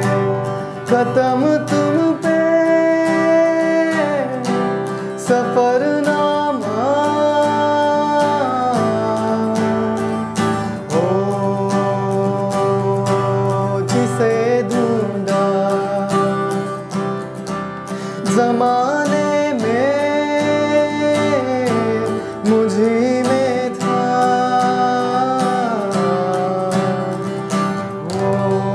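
A man singing a melody of long held, sliding notes in phrases, accompanied by a strummed acoustic guitar.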